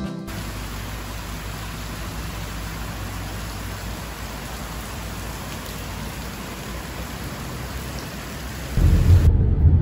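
Steady hiss of heavy rain. Near the end a louder low rumble cuts in.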